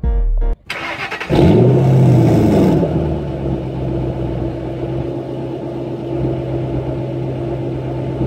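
Car engine cranked over on the starter, catching about a second in with a quick rev that rises and falls back, then settling into a steady idle.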